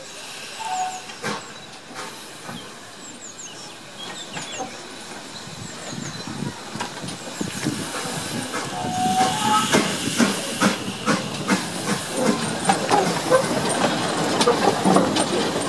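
GWR 4575 Class 2-6-2 prairie tank steam locomotive No.5541 moving slowly past, with steam hissing and a regular beat of knocks, about two a second, that grows louder as it comes close.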